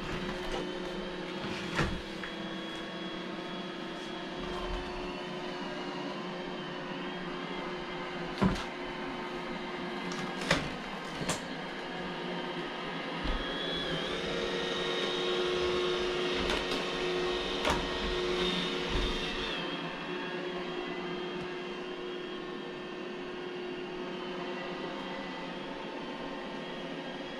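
iRobot Roomba j7 robot vacuum running with a steady whir and a few sharp knocks. About halfway through its motor note rises to a louder, higher whine for some five seconds, then settles back.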